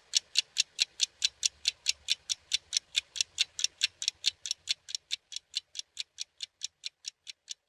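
Wall clock ticking, a quick even tick about four to five times a second, growing gradually softer toward the end.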